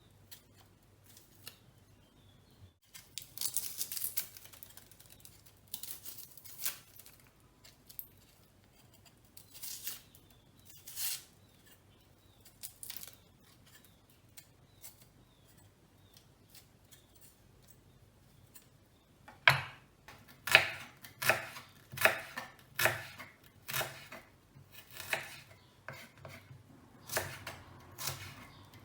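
Dry onion skin peeled off by hand: sparse crackling, tearing rustles. About two-thirds of the way in, a knife starts slicing the onion, each stroke a sharp knock, a little over one a second.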